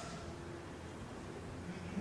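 Quiet room tone with faint, low voice sounds.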